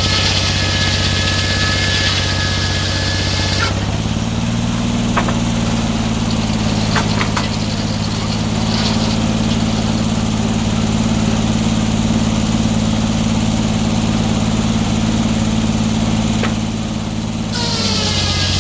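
Sawmill engine running steadily while the saw blade cuts through a log with a high hissing whine. The cutting noise stops about four seconds in, leaving the engine running on its own with a few light knocks, and the cut starts again near the end.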